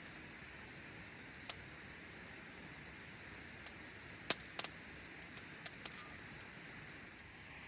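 Wood campfire crackling: a steady hiss with a scatter of sharp, irregular pops, the loudest a little past the middle.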